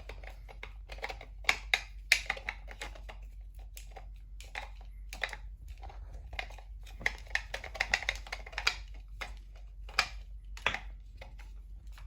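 Cable being wound onto a 3D-printed plastic drum by hand: irregular light clicks, taps and rustles as the drum is twisted and the cable slides and knocks against the plastic parts.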